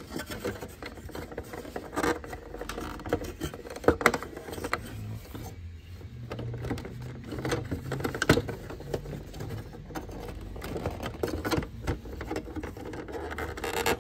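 Scattered plastic clicks, taps and rattles as the inside of an HP Color Laser MFP 178nw laser printer is handled and its parts are fitted back into place.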